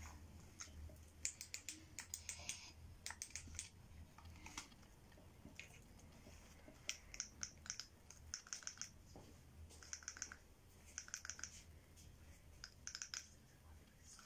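Faint, light clicks coming in quick bursts of several at a time, repeated every second or two, over a low steady hum.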